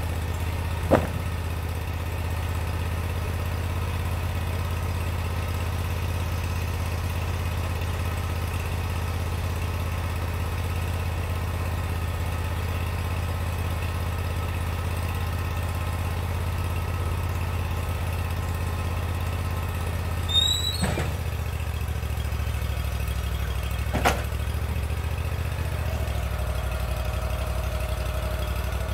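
Portable bandsaw sawmill's engine running steadily, with a sharp knock about a second in and two more knocks later on. Near the end a steady whine joins the engine's hum.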